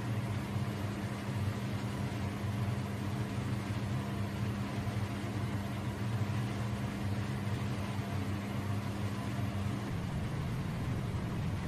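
Steady machine hum with a low drone; a higher hum tone cuts out about ten seconds in.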